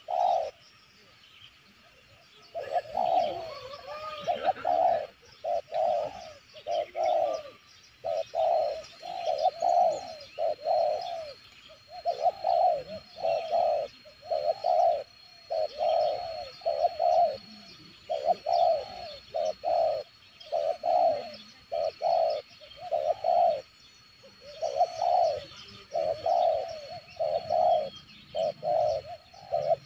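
Spotted dove cooing, phrase after phrase in a fast, even rhythm with only short pauses. A thin steady high tone runs underneath from about eight seconds in.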